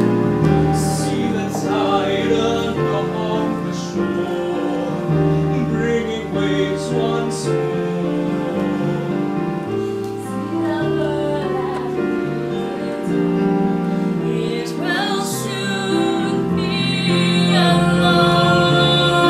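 Ballad from a stage musical: sustained instrumental chords over a moving bass line, with singing in it, a woman's voice plainest near the end.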